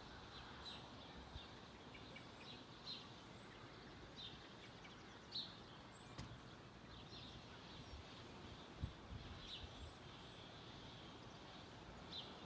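Faint outdoor background noise with short bird chirps scattered every second or two, and a couple of soft low thumps.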